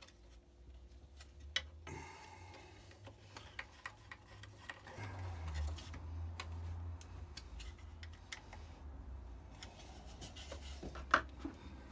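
Light ticking and rubbing of hand work as a thread-locked screw is put back into a bench grinder's base, with one sharp click near the end, over a low steady rumble.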